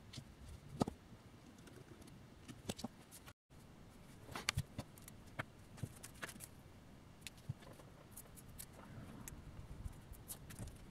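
Scattered light clicks and taps as a disassembled GoPro Hero5 Session camera's housing and circuit board are handled, with a brief total dropout about a third of the way in.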